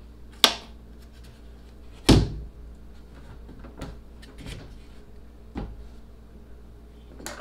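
Plastic glove box hatch on a boat console being opened and handled: a sharp latch click about half a second in, a louder knock about two seconds in, then several lighter clicks and taps.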